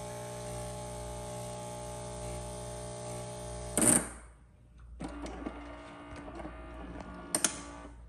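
Saeco Xelsis super-automatic espresso machine humming steadily as it pumps coffee into the cup. About four seconds in it cuts off with a sharp hiss of released pressure. After a short pause a quieter mechanical whir runs for a couple of seconds, broken near the end by a short sharp puff.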